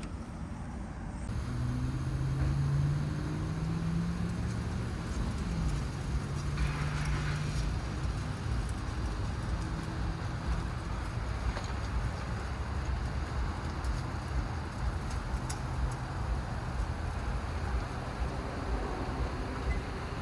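Steady motor-vehicle noise with a low engine hum that climbs in pitch over the first few seconds, then holds steady and fades.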